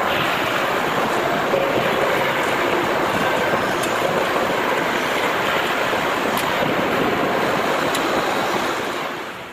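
W11K four-roller plate bending machine running as a thin steel sheet is fed through its rolls and bent into a cone: a steady rushing, scraping noise with a few faint ticks. It drops off near the end.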